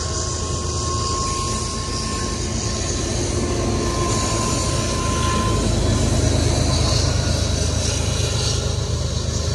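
CN diesel freight locomotives passing close by, their engines rumbling steadily and growing a little louder as the lead units go past about four seconds in. A thin, steady whine sounds along with it and fades out about halfway.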